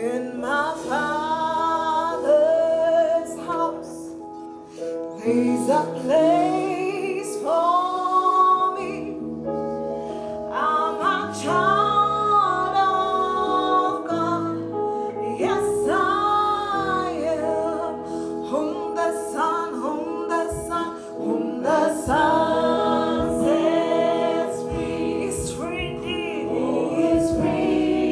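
Female worship singers singing a gospel song together over steady held chords.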